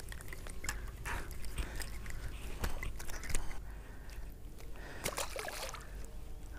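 Scattered splashes and drips of water, with sharp clicks and rustles of a just-landed largemouth bass being handled close to the microphone. A denser cluster of splashy clicks comes about five seconds in.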